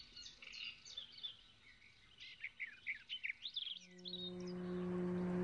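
Small birds chirping and twittering in quick short calls that thin out over the first few seconds. Near the end a low held chord of several steady tones fades in and grows louder.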